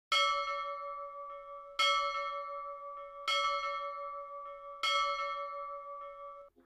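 A bell struck four times, about a second and a half apart, each stroke ringing with several pitches and fading before the next; the last stroke is cut short near the end.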